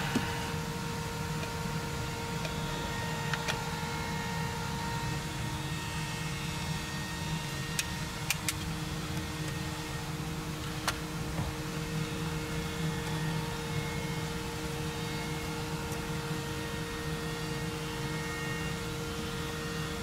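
Steady mechanical hum with two constant tones running under it, and a few sharp clicks about eight seconds in and again near eleven seconds.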